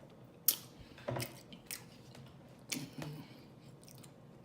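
Close-up chewing of fried chicken in cheese sauce, with a handful of sharp, wet lip smacks and mouth clicks; the loudest comes about half a second in.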